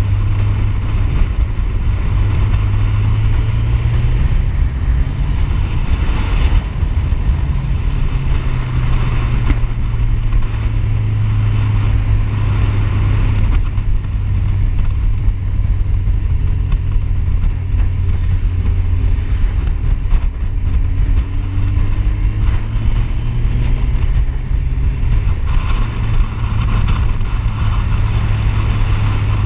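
Motorcycle at road speed: a steady low rush of wind on the microphone, with the engine's note faintly rising and falling underneath as the bike speeds up and slows through the bends.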